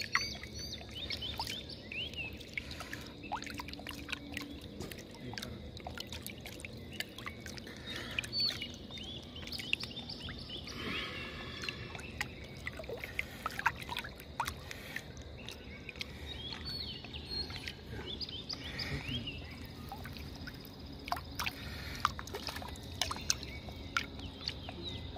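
Water lapping, splashing and dripping around a wooden dugout canoe while a gill net is lifted out of the river, with scattered sharp clicks and knocks. Birds chirp and sing over it throughout.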